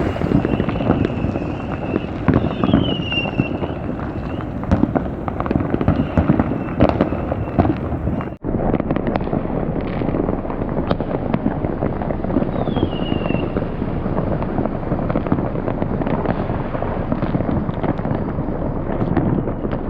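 New Year's fireworks and firecrackers going off all around in a dense, continuous barrage of cracks, pops and bangs, with a couple of short falling whistles. The sound cuts out for an instant a little before the middle.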